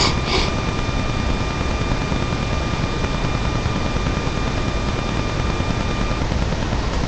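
Loud steady static hiss from a webcam microphone, with two short sharp hissing bursts at the very start and a faint high steady whine that stops about six seconds in.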